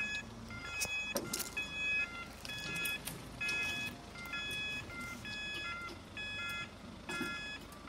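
Level crossing warning alarm sounding in short, repeating electronic tone pulses, a little more than one a second, with a few sharp clicks among them.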